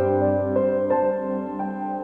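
Instrumental keyboard music: a melody of held, piano-like notes changing about every half second over sustained chords, with no singing.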